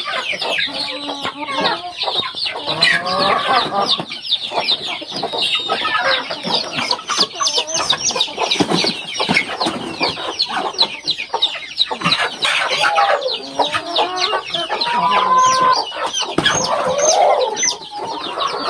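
Chickens clucking and calling in a coop, over a constant, rapid run of short, high, falling peeps.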